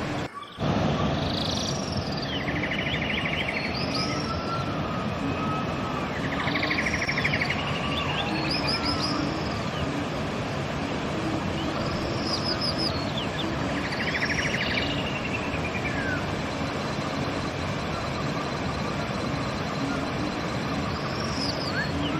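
River water rushing steadily, with a songbird repeating a short song every few seconds: high arching notes and a buzzy trill. There is a brief drop-out about half a second in.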